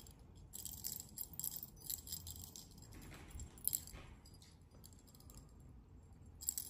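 Small bell on a feather wand cat toy jingling in quick, irregular shakes as a kitten bats at it and bites it.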